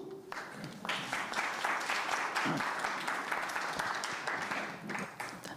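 Audience applauding: many hands clapping for about five seconds, dying away near the end.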